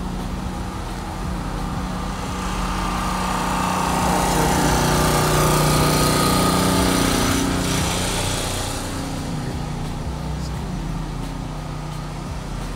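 Small engine of a portable generator running steadily, growing louder for a few seconds in the middle as it is passed and then fading.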